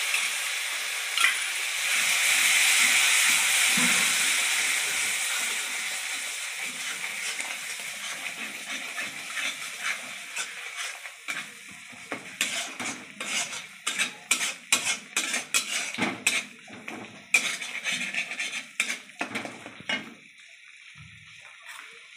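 Yogurt hitting hot oil and masala in a metal kadai, sizzling loudly at first and slowly dying down. About halfway through, a metal spatula scrapes and knocks against the pan in quick repeated strokes as the masala is stirred.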